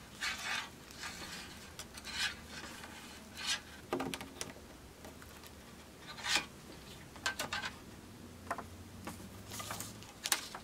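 Thick 14-gauge copper wire being bent by hand and with round-nose pliers over a paper pattern: irregular short scrapes and rustles of wire and fingers on the paper, with a few small clicks.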